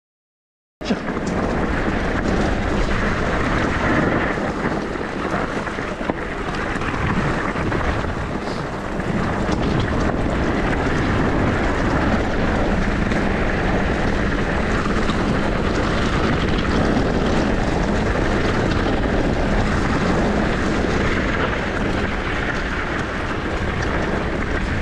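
Steady roar of wind on the microphone mixed with tyre and trail rumble from a downhill e-bike ride, starting abruptly about a second in.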